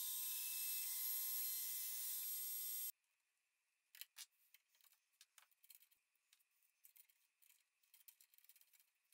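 Makita trim router running as a CNC spindle, a steady high whine with hiss, which stops abruptly about three seconds in. Then faint scattered metal clicks and taps of open-end wrenches on the router's collet nut during a bit change.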